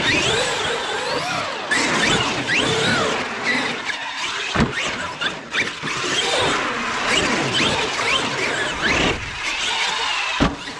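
Traxxas X-Maxx electric RC monster truck being driven on concrete, its brushless motor whining up and down in pitch as the throttle is worked, over a steady rushing noise. There is a sharp knock about four and a half seconds in and another near the end.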